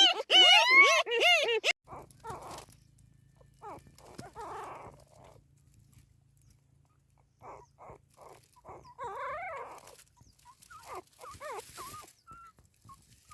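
Newborn puppies squealing in quick, high-pitched cries that rise and fall in pitch, loud for the first second and a half or so. After that come fainter, scattered whimpers and squeaks.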